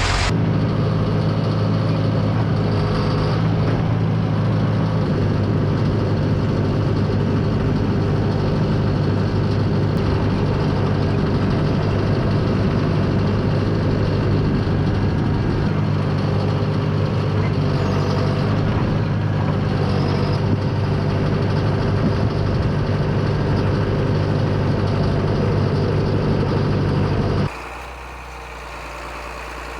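Tractor engine running steadily with a low, even drone while pushing snow. Near the end it drops suddenly to a quieter engine hum.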